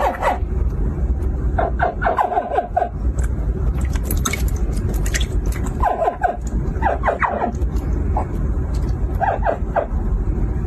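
Hatchling crocodiles giving short, pitched chirping calls in quick clusters of several. The first cluster comes about two seconds in, a longer one around six to seven seconds, and another near the end, over a steady low rumble.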